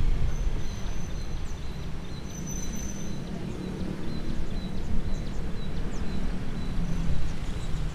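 Outdoor background noise: a steady low rumble with short, thin, high chirps and whistles scattered through it.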